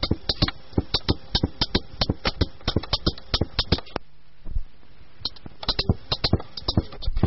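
Percussion playing a quick, uneven pattern of sharp strokes with no melody instrument. The strokes thin to a single hit for about a second near the middle, then pick up again.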